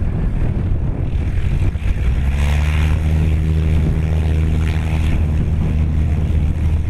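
Gusty wind on the microphone, then about two seconds in the Carbon Cub's engine and propeller come in at takeoff power, a loud steady drone as the plane begins its short takeoff roll.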